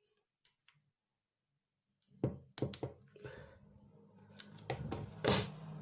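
Sharp clicks and taps of small parts being handled while a smartphone's battery connector is unclipped and the battery taken out, over a low steady hum. The clicks begin about two seconds in, the loudest near the end.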